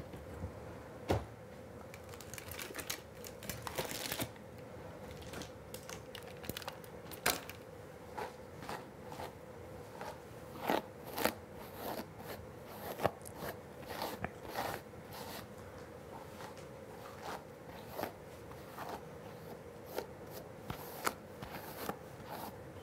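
Irregular small crackles and clicks close to the microphone, thickest around the middle, over a steady faint hum.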